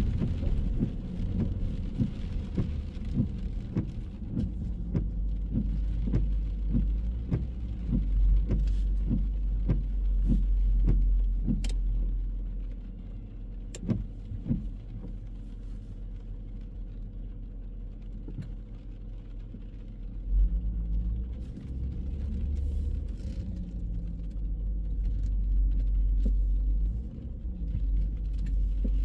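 Traffic on a wet city street: cars passing with a steady low rumble. For about the first half, light regular knocks come about twice a second.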